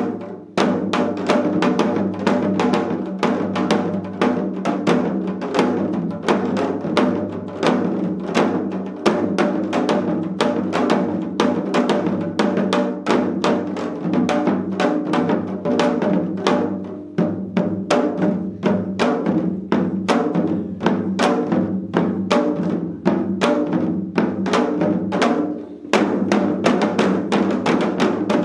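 Four janggu (Korean hourglass drums) played together in a seoljanggu ensemble, a fast, dense rhythm of stick and mallet strikes on the drumheads. The playing breaks off briefly near the end and then picks up again.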